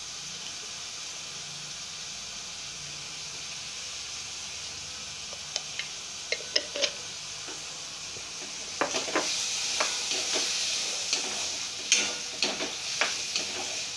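Soaked black-eyed peas and spices sizzling in hot oil in a metal kadhai. A few sharp taps come around six seconds in. From about eight seconds a spatula stirs the peas, scraping and knocking against the pan, and the sizzle grows louder.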